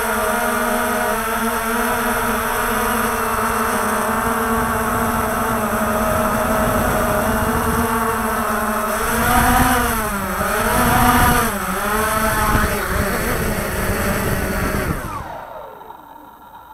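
Walkera TALI H500 hexacopter's motors and propellers buzzing at a steady pitch, heard close up from its onboard camera. About nine seconds in, the pitch dips and rises a few times as the throttle changes on the way down. Near the end the buzz slides down in pitch and fades as it sets down and the motors spin down.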